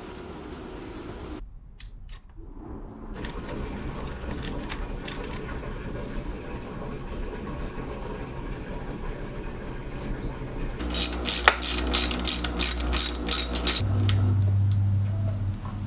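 Metal tool clinks and parts being handled on a mountain bike frame, then a ratchet wrench clicking in an even run, about four clicks a second, as a frame pivot bolt is worked. A steady low hum comes in near the end.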